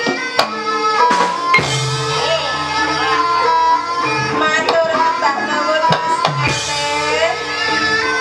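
Ebeg accompaniment music: kendang hand drums struck in an irregular pattern under a sliding, wavering melody and held low notes.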